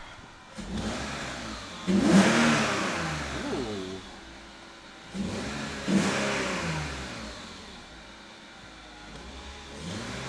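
2001 BMW 330Ci's M54B30 inline-six, fitted with a new cold air intake, being revved in Park. There are two sharp blips of the throttle about four seconds apart, each climbing fast and then sinking back toward idle over a couple of seconds. A gentler rise comes near the end, with the intake noise plain on each rev.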